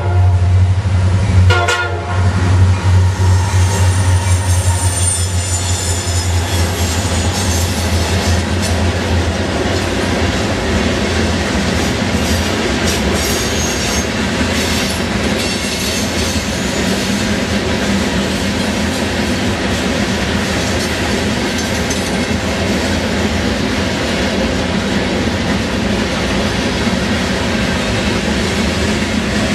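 CSX freight train passing: a short locomotive horn blast about a second and a half in, the diesel locomotive's low engine drone over the first several seconds, then a steady rumble and clatter of freight cars rolling by on the rails.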